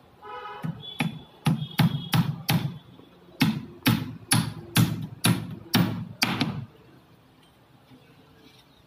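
Hand hammer striking the wooden column shuttering, about a dozen blows at roughly two a second, the first few with a faint metallic ring, then it stops.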